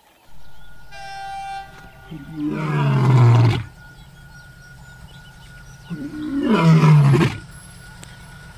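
Two dubbed-in lion roar sound effects, each about a second and a half long and falling in pitch, the first and loudest about two and a half seconds in. They are preceded by a short steady horn-like note about a second in.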